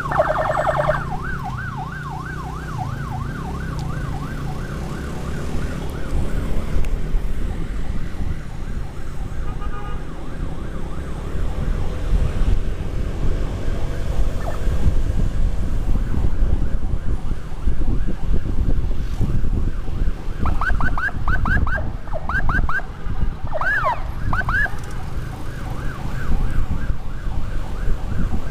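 Electronic emergency siren wailing rapidly up and down, about three sweeps a second, breaking into a few sharp separate yelps a little past two-thirds of the way through. Under it is the low rumble of motorcycle riding and wind on the microphone, which grows stronger from about the middle on.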